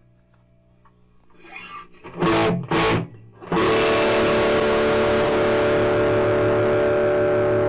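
Electric guitar played through a 1967 Fender Bassman tube amp. First there is only a faint low hum, which the owner suspects comes from old filter capacitors. About two seconds in come two short chord stabs, then a chord struck about three and a half seconds in that is left ringing.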